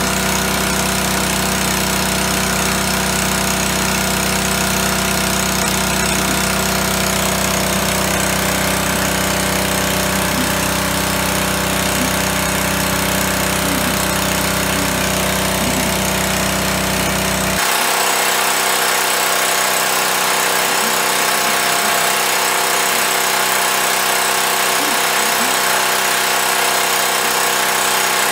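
Small gas engine of a Power Fist 1-inch water transfer pump running steadily while it pumps water out through its hose. About two-thirds of the way through, the low rumble drops away abruptly while the higher engine noise carries on.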